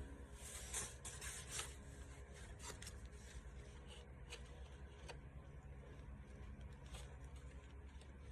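Faint rubbing and rustling with scattered light clicks over a steady low hum.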